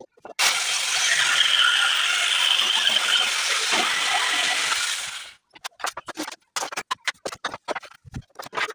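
Electric jigsaw cutting through a wooden plank, a steady loud buzz that stops about five seconds in. After it come a series of short knocks and clatters of wooden boards being handled and set down.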